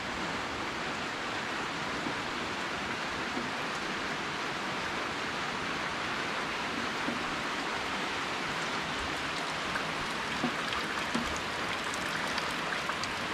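Steady rain falling, with a few single drops standing out in the last few seconds.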